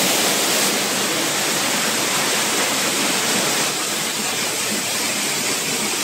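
Waterfall rushing: a loud, steady, unbroken hiss of falling water.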